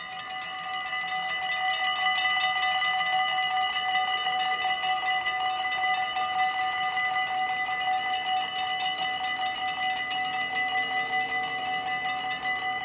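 The two mechanical bells of a Dutch AHOB automatic half-barrier level crossing ringing in rapid, steady strokes, warning that a train is coming while the barriers lower.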